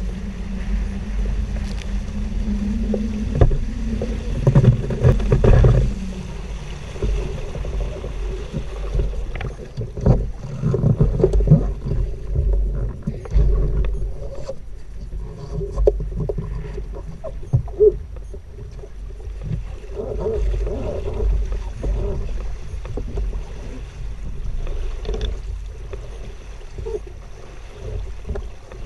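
Water rushing and splashing along the hulls of a Hobie Wave catamaran under sail, over a constant low rumble of wind on the boat-mounted camera's microphone, with occasional knocks.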